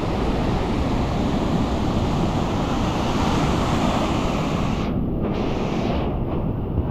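Steady surf noise from waves on the beach, with wind rumbling on the microphone.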